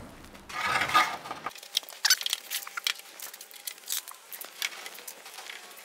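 Workshop handling noise from spring clamps and thin timber strips being worked by hand: a short rustle, then many light, irregular clicks and taps.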